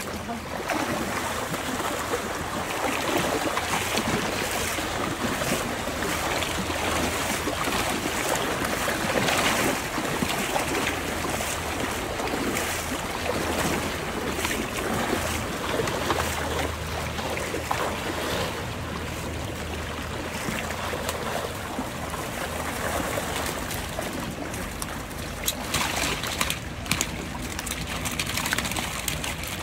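Fast, shallow stream rushing steadily, with rubber boots sloshing through the water as someone wades. A few short, sharp sounds stand out near the end.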